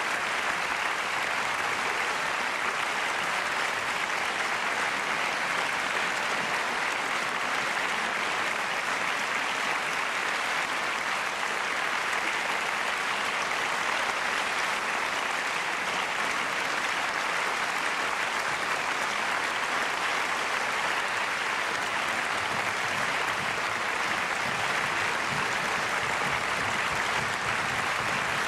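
Concert audience applauding in a steady, unbroken round of clapping.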